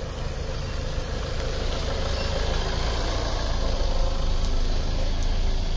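A van's engine running as it drives up close and comes to a stop, idling. The low, steady engine hum grows a little louder toward the middle.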